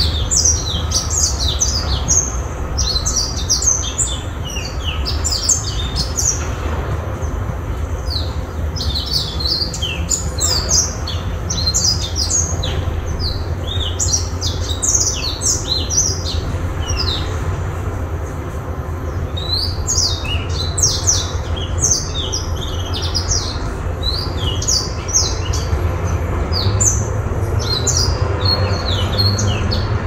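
Small caged songbird singing long, fast twittering phrases of rapid high chirps, with short pauses between phrases. A steady low rumble runs underneath.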